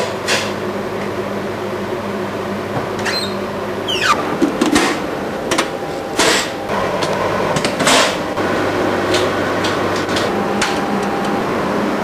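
A heavy fire door opening and swinging shut, with a string of sharp clicks and knocks and a short falling squeak about three and a half seconds in, over the steady hum of running projection-booth machinery.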